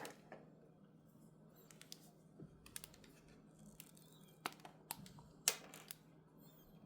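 Scattered small clicks and taps of medicine vials and packaging being handled while a drug is prepared for dilution. There are about half a dozen sharp clicks between two and six seconds in, the loudest about five and a half seconds in, over a faint steady low hum.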